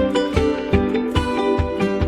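Background music led by plucked strings, with a steady beat of about two or three strokes a second.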